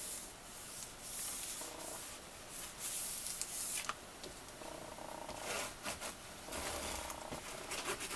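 Hands rubbing and smoothing paper down onto cardstock: a run of dry brushing swishes of uneven length.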